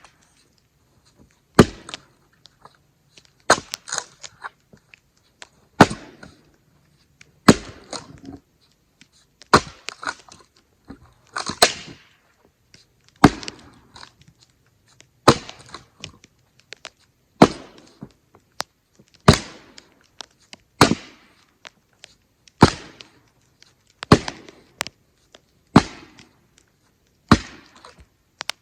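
Splitting axe striking firewood rounds, about fifteen sharp cracks spaced a second and a half to two seconds apart, each followed by a few lighter knocks of wood.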